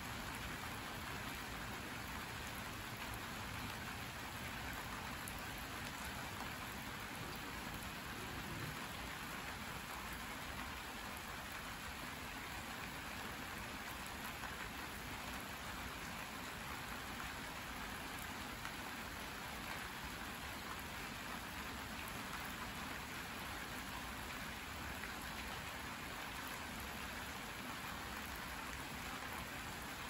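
Steady rain falling, an even hiss of drops that holds level throughout.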